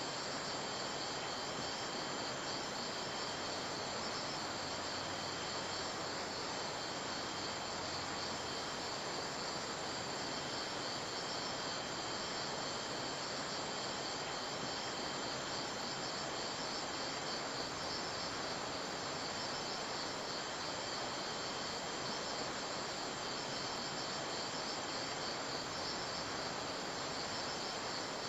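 A steady, high-pitched insect chorus over an even hiss, unchanging throughout.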